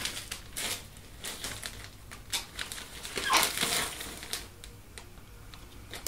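Plastic bag crinkling and rustling as it is handled, in irregular crackles, busiest about halfway through.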